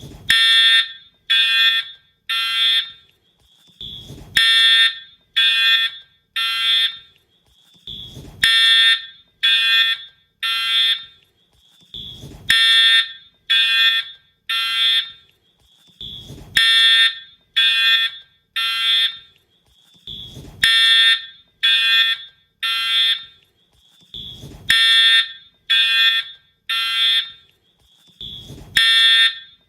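Wheelock horn/strobe fire alarm horn sounding loud, buzzy blasts in groups of three about a second apart, each group repeating every four seconds: the temporal-3 evacuation pattern. A faint short chirp and a low thump come just before each group.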